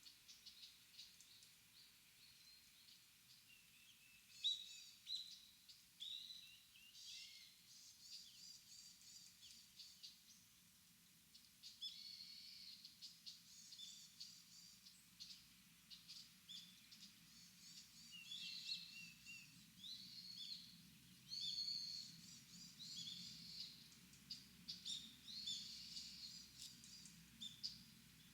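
Several small birds chirping and twittering in short, high calls, scattered throughout and coming thicker in the second half, faint over a quiet low background.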